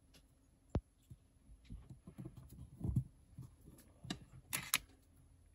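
Soft knocks and taps of a wood-mounted rubber stamp being pressed down and handled on paper on a tabletop, with a sharp click about a second in, low thuds about halfway, and a brief rustle near the end.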